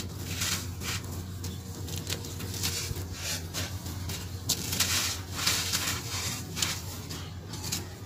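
Hands scooping and sifting dry, powdery cement-sand crumbs, giving an irregular gritty rustling as the grains pour and patter down, several soft bursts a second. A steady low hum runs underneath.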